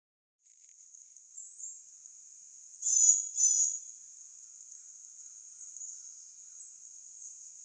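Steady high-pitched trilling of insects in the grass, starting about half a second in, with two louder short chirps close together about three seconds in.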